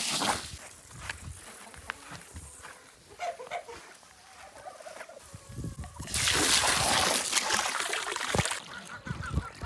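Chickens clucking and calling, with scattered clicks. About six seconds in, a loud rushing noise lasts two to three seconds.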